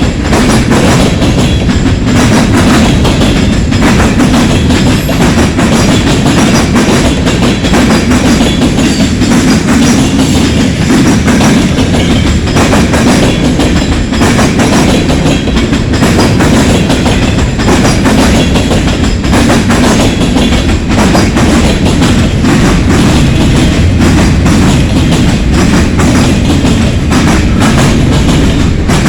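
Loaded freight cars of a long CSX freight train rolling past close by, a steady loud rumble with rapid rhythmic clicking of wheels over the rail joints.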